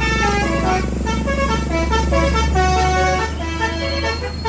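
Bus telolet horn of the Basuri type playing a quick melody of short and held notes over a steady low hum.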